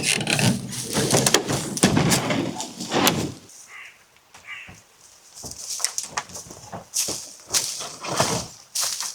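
Irregular rustling and crunching knocks, with two short bird calls a little before the middle.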